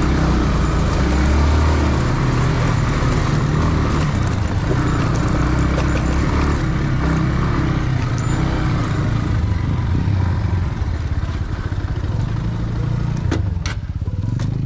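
Motorcycle engine running under load on a rough off-road climb, its revs rising and falling, with a few sharp clicks near the end.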